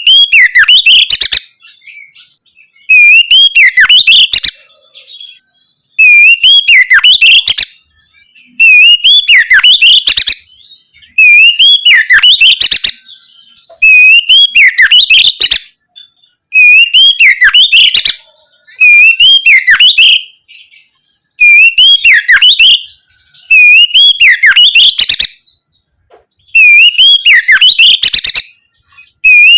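Oriental magpie-robin (kacer) singing loudly in the clear, open ngeplong style: the same short whistled phrase, opening on a rising note, repeated about every two and a half seconds.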